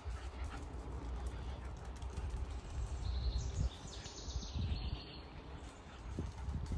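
Outdoor ambience: a steady low rumble on the microphone, with faint bird chirps around the middle.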